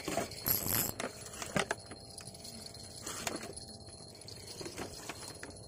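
Scattered light knocks and clicks, about one every second or so, with a short hiss about half a second in.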